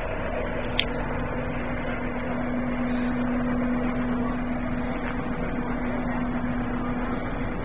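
An engine running steadily at idle, a constant low hum, with a single click about a second in.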